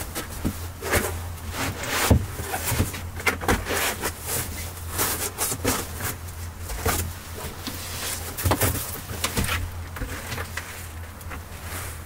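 Cloth rustling and shuffling, with light irregular knocks, as a plaid blanket and a mat are spread and smoothed out on a wooden plank bunk. A steady low hum runs underneath.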